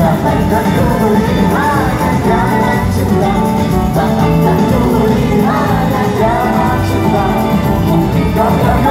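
Loud, steady music with a singing voice.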